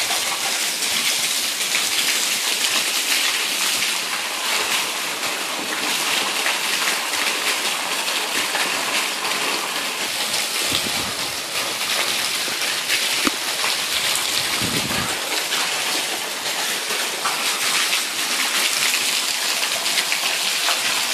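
Monsoon rain falling steadily, a dense even hiss of rain on the ground and surfaces. Two brief low rumbles come about halfway through.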